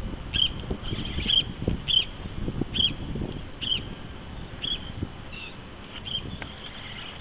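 Short high chirps repeating about once a second, over wind rumble on the microphone.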